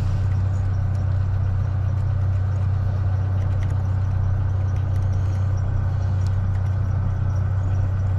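Steady low mechanical hum throughout, with faint, light metallic ticks of a lock pick working the pin tumblers of a deadbolt cylinder.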